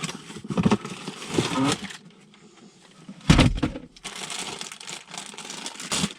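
Cardboard box and plastic packaging rustling and crinkling as an air intake kit is unpacked, with a short pause and a single thump a little past the middle.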